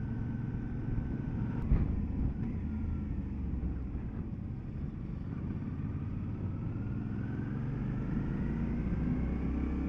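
Motorcycle engine running steadily under way, heard from the bike with a haze of road and wind noise; its pitch rises gently over the last few seconds.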